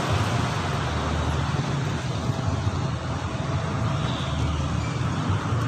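Steady low rumble of road traffic, with no single passing vehicle standing out.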